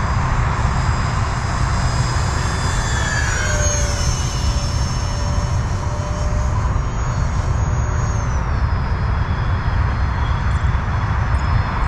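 Electric ducted-fan whine of an E-flite F-15 Eagle RC jet in flight: a high whine whose pitch dips and comes back about three to four seconds in, then drops again around eight to nine seconds in. A steady low rumble runs underneath.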